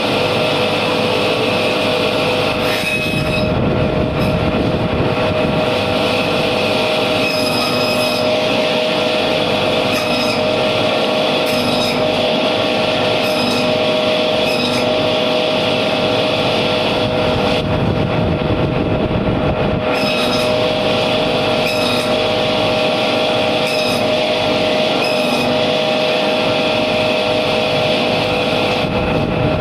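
Electric meat-and-bone band saw running with a steady whine while chunks of catla carp are pushed through the blade, with a short change in the sound every second or two.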